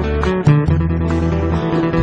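Instrumental passage of a song: acoustic guitars picking over a sustained low bass line, the bass note changing about half a second in.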